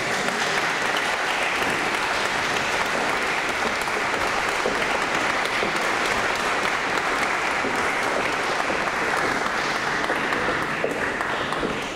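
Concert audience applauding, a dense steady clapping that dies away right at the end.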